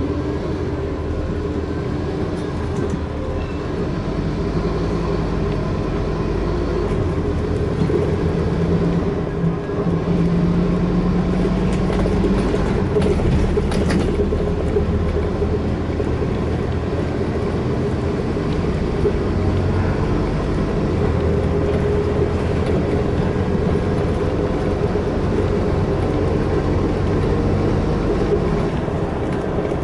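Cabin sound aboard a Scania N230UD Alexander Dennis Enviro400 double-decker bus under way: its five-cylinder diesel engine running, with road and body rumble. The bus picks up speed over the first several seconds, then runs steadily.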